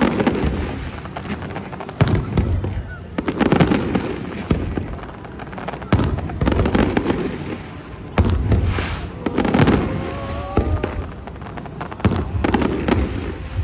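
Fireworks display bursting overhead: a string of sharp bangs every one to two seconds, each trailing off into a low rumble.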